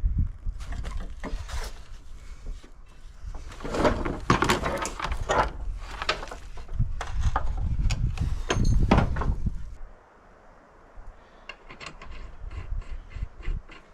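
Hand work on a ride-on mower's metal parts: irregular knocking, clattering and scraping of tools and parts. It turns quieter about ten seconds in, ending in a run of quick, even clicks, about four a second.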